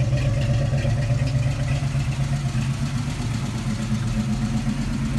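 An engine idling steadily, an even hum with no change in speed.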